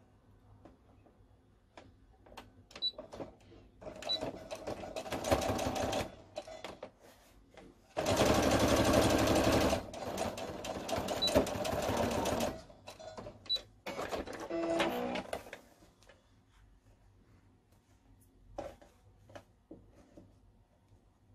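Sewing machine stitching the folded 1 cm side hems of a cotton mask in three short runs, about 4, 8 and 14 seconds in, the middle run the longest and loudest. Scattered small clicks come between the runs.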